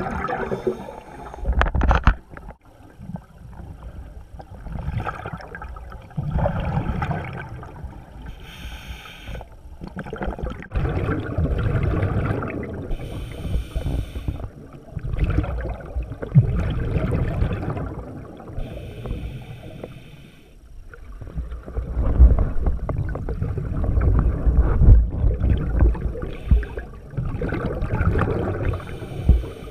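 Scuba diving breathing heard underwater: a regulator hissing on each inhalation, then a low rumbling rush of exhaled bubbles, repeating every few seconds.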